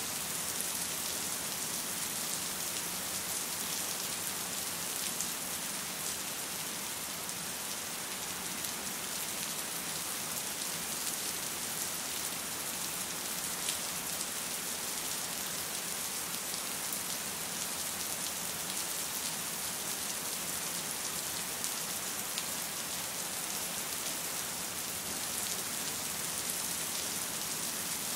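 Steady rain falling, an even hiss with scattered ticks of individual drops.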